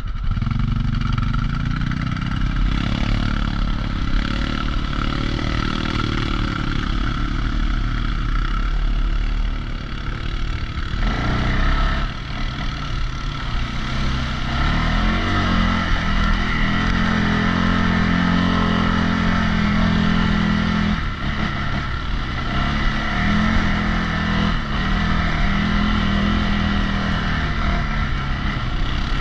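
CFMOTO CFORCE 625 ATV's single-cylinder engine running as it is ridden over a rough dirt trail, its pitch rising and falling with the throttle.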